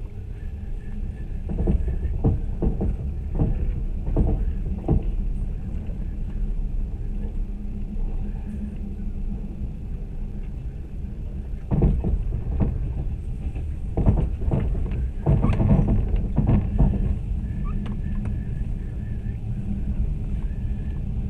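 A moving passenger train heard from inside the carriage: a steady low rumble, with irregular knocks and clatters, several about two to five seconds in and again from about twelve to seventeen seconds in.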